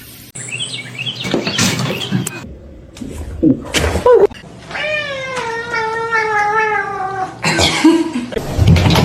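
A cat's long drawn-out yowl, sliding slowly down in pitch for about two and a half seconds, after a couple of short calls.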